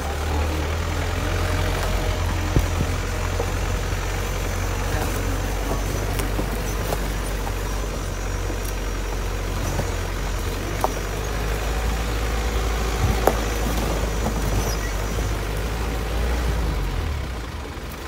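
Safari 4x4 jeep's engine running as it drives along a rough dirt track, a steady low drone heard from inside the vehicle, with a few sharp knocks from the bumpy ride. The drone eases off near the end.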